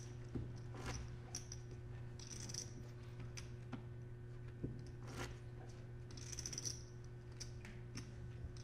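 Poker chips clicking against each other as a player handles his stacks: scattered single clicks and two longer runs of clattering, about two and a half seconds in and again around six and a half seconds, over a steady low hum.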